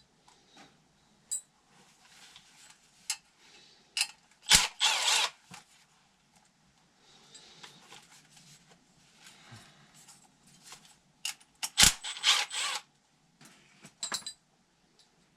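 Metal parts and hand tools clinking and scraping as a blower motor mount is taken apart: scattered light clicks, with two loud knocks, each followed by a short scraping rattle, about four and a half and twelve seconds in.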